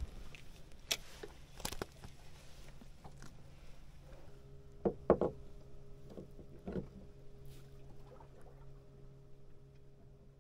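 A few knocks and thumps of gear being handled against a wooden boat's hull and deck, the loudest pair about five seconds in, over a steady low engine hum. A second, higher engine hum joins about four seconds in.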